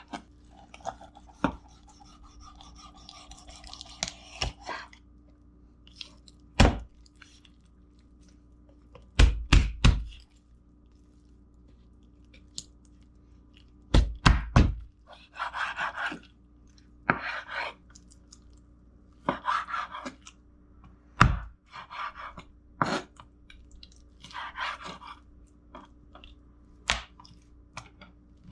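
Knife cutting raw chicken on a cutting board: sharp thunks, some singly and some in quick runs of two or three, with short scraping, rasping sounds between them as the skin and fat are cut away.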